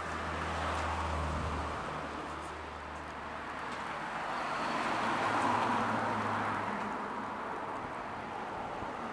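Road traffic going by: tyre and engine noise that swells and fades twice, over a low steady hum.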